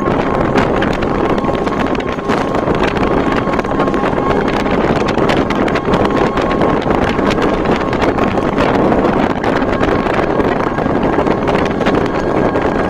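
Wind buffeting the microphone on a moving motorbike, over the steady running of the motorbike engine. A faint steady tone comes and goes.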